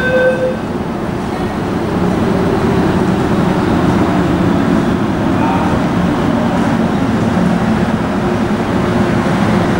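MTR Kwun Tong Line train pulling into the underground platform behind platform screen doors: a steady rumble of wheels and motors that swells over the first few seconds and then holds.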